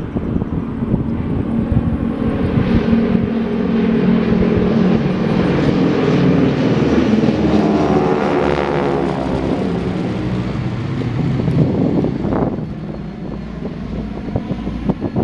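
Four North American T-6 Texans, with Pratt & Whitney R-1340 radial engines, flying over in formation: a loud engine and propeller drone that builds, peaks as they pass directly overhead about eight seconds in, then drops in pitch and fades near the end.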